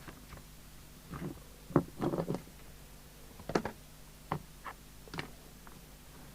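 Scattered light clicks and knocks of the CB radio being handled and fitted into its case, over a faint steady hum.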